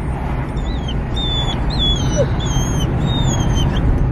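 A dog whining in a run of short, high, wavering whimpers, over the steady low rumble of the car.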